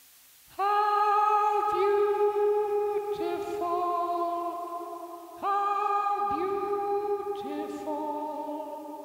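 Layered, choir-like vocal samples triggered from an Akai APC pad controller. A held chord of several voices starts suddenly about half a second in, its lower voices swooping down into their notes, and slowly fades. A second chord enters about five and a half seconds in.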